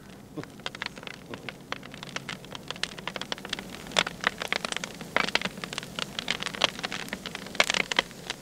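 Wood fire crackling and popping: a dense, irregular patter of sharp snaps over a low hiss, with a few louder pops.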